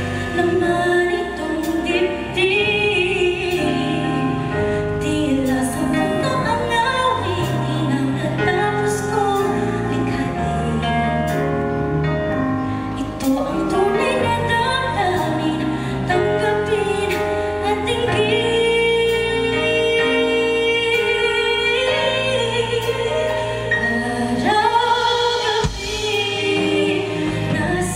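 A woman singing a ballad live into a microphone, backed by a band of electric guitar, keyboard, bass and drums. About two-thirds of the way through she holds one long note with vibrato.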